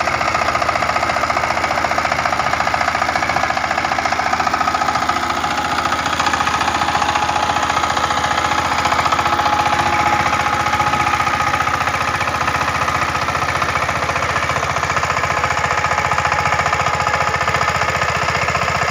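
Two-wheel power tiller's single-cylinder diesel engine running steadily with a rapid, even knocking clatter as it drives its cage wheels through paddy-field mud.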